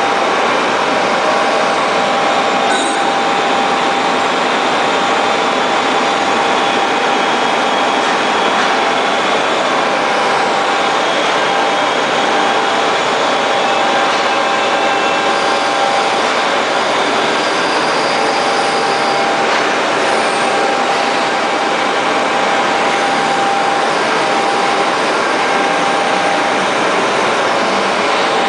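Microntec GD-2S-4000L/NC CNC gun drill machine running: a loud, steady, dense noise with a constant whine in it.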